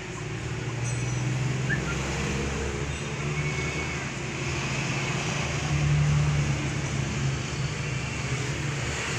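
Street traffic: passing vehicles with a low engine rumble that builds at the start and is loudest about six seconds in.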